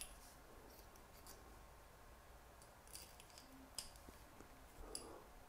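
Near silence, with a few faint small clicks of metal airbrush parts as the trigger mechanics are fitted into the airbrush body, most of them in the second half.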